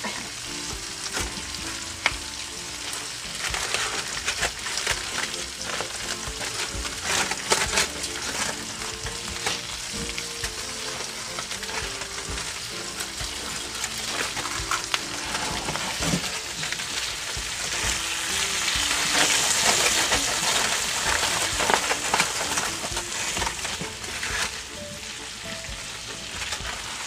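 Aluminium foil crackling and rustling in irregular bouts as it is handled and peeled open from around a wrapped seared roast.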